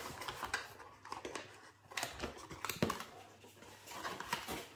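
Packaging being handled: irregular rustling and crinkling with scattered clicks and knocks as the next item is unpacked from its box.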